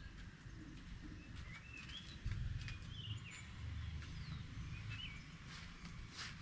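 Birds chirping in short, bending calls, over a low rumble that is loudest about two seconds in.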